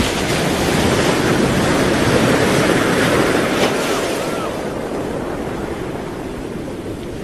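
Ocean waves washing onto a shore, the surf swelling and then easing off, with two short high arching cries about four seconds in.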